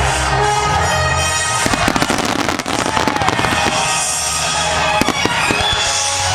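Aerial fireworks bursting and crackling over music, with a dense flurry of sharp crackling bangs about two seconds in and a few more pops near five seconds.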